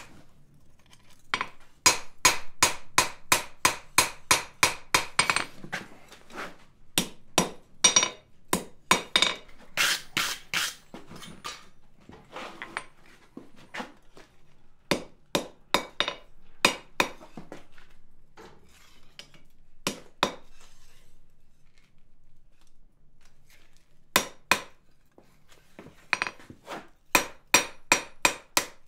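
A blacksmith's hand hammer striking a red-hot iron bar on an anvil, bending and straightening it over the horn and face. The blows come in runs of about two or three a second with pauses between, each one ringing off the anvil.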